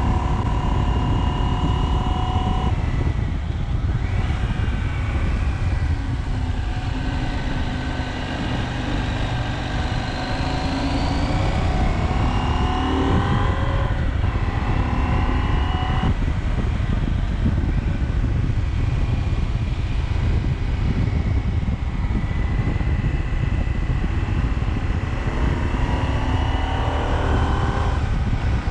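KTM 790 Adventure's parallel-twin engine under way on the road, with wind noise on the microphone. The engine note climbs and then breaks off and drops several times as the rider accelerates and shifts gears.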